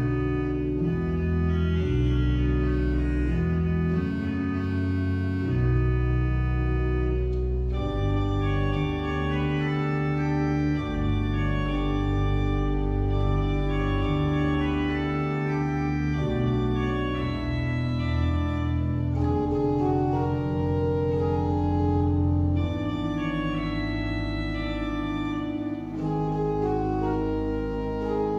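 Church organ playing slow sustained chords on the manuals over a deep pedal bass line, the chords changing every second or two.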